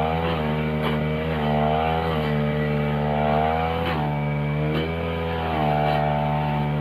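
Backpack two-stroke brush cutter running at high throttle while its blade cuts grass, the engine pitch dipping and picking up again several times.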